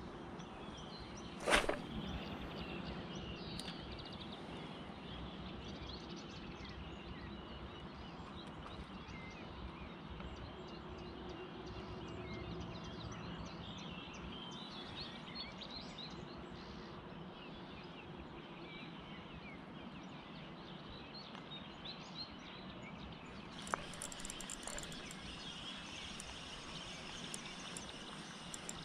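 A cast lure splashes down on the river about a second and a half in, the loudest sound here. Birds chirp over a steady outdoor background, and from about 24 s a flurry of sharp clicks sets in.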